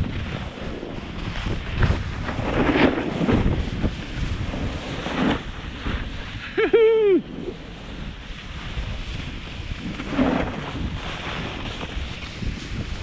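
Wind buffeting the camera microphone as skis hiss and scrape over chopped-up snow on a downhill run. A short voiced cry, rising then falling in pitch, about seven seconds in.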